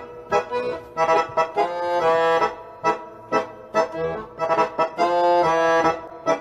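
Instrumental background music: a bouncy tune of short, clipped chords, with two longer held chords, about two seconds in and again about five seconds in.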